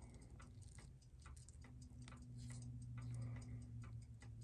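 Faint, rapid, even ticking of a Seiko 6138 automatic chronograph's mechanical movement, held close to the microphone.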